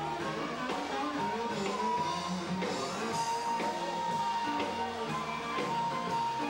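Live Chicago-style blues band playing, with upright bass, drum kit and amplified blues harmonica; a long held note runs through the second half.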